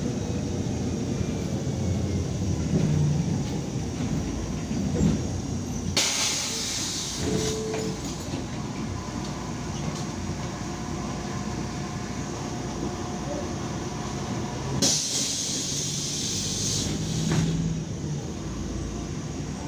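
Ride inside a MAZ 103 city bus: its engine and running gear rumble low and steady. Twice, about six seconds in and again past the middle, there is a hiss of compressed air lasting two to three seconds each, from the bus's air system (brakes or doors).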